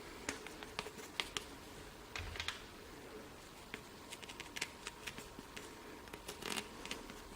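Scattered light clicks and short scraping rustles of hands and a small tool working grease into the teeth of a steel gear.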